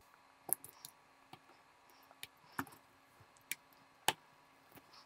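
Scattered light clicks and taps of plastic and metal parts as a Sony TC-K590 cassette deck's tape transport mechanism is handled and worked apart, about nine in all, the sharpest a little after four seconds in.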